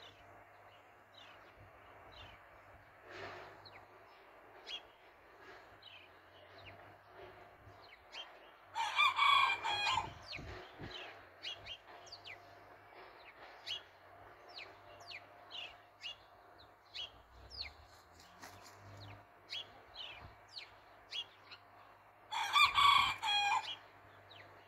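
A rooster crowing twice, about thirteen seconds apart, each crow lasting about a second and a half. Many short, high chirps run between the crows.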